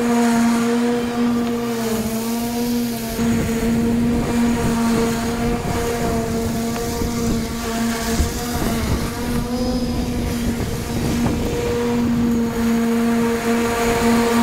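Battery-electric lawn equipment running under load: a steady motor whine with a ladder of overtones that sags and recovers a few times, over a rough crackle of grass and debris being cut.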